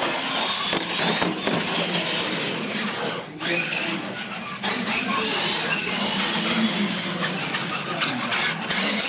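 Radio-controlled monster trucks racing flat out, a steady rasping noise of motors, gears and tyres, with a brief dip about three seconds in.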